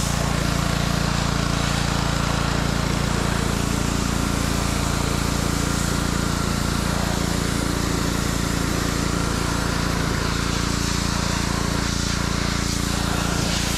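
Pressure washer running steadily: the motor's constant drone under the hiss of the water jet blasting dirt off a boat hull.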